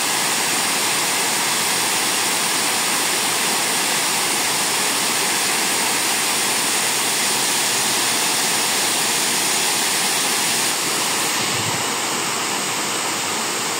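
Water overflowing the crest of a reservoir dam and pouring down its stepped masonry face into the basin below: a loud, steady rush that starts suddenly.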